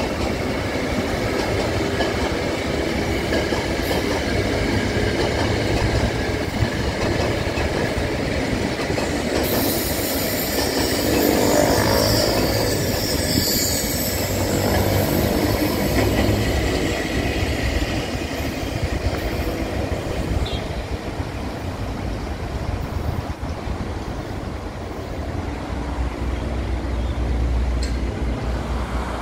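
Electric commuter trains (KRL, ex-JR 205 and ex-Tokyo Metro 6000 series) passing on ballasted track, a steady rumble with wheels clattering over the rails. About ten seconds in, a higher rushing, squealing sound swells and then fades away again about five seconds later.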